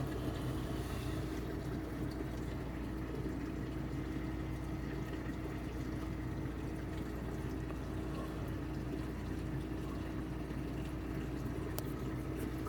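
Reef aquarium sump running: water from the drain pipe splashing and pouring steadily into the filter sock, over a steady pump hum. The drain pipe still ends above the water level, which makes the splashing loud.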